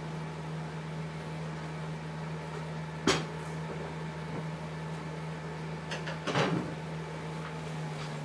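Steady low hum of aquarium equipment, with one sharp knock about three seconds in and a short cluster of knocks around six seconds in.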